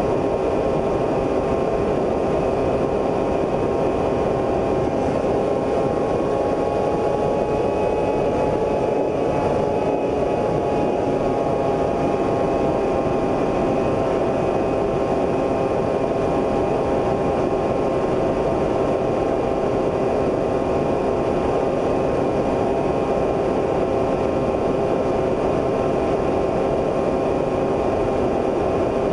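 Drone's motors and propellers buzzing steadily in flight, a whine of several pitches that wavers briefly about eight to ten seconds in.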